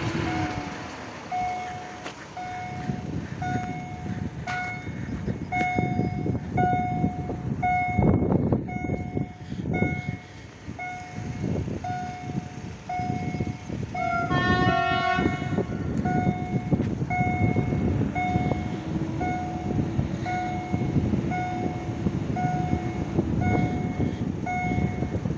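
Level crossing warning signal beeping steadily, short tones repeating about three times every two seconds, over wind rumbling on the microphone. About halfway through a distant train horn sounds briefly.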